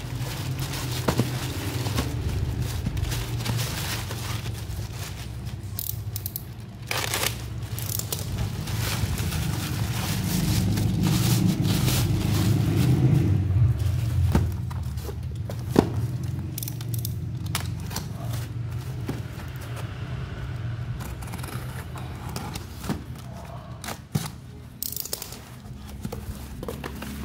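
A black plastic bag crinkling and rustling as it is pulled off a parcel by hand. Then a cardboard box is handled and its flap torn open near the end, with scattered sharp crackles and a steady low drone underneath.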